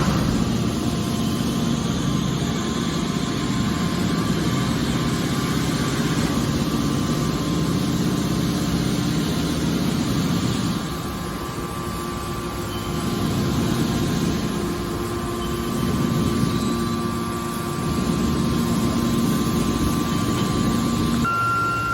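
Hydraulic scrap metal baler running, a continuous mechanical drone from its motor and hydraulic pump, easing slightly a couple of times partway through.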